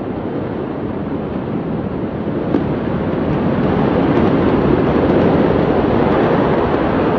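A loud, steady rushing noise that swells a few seconds in, with a few faint sharp pops.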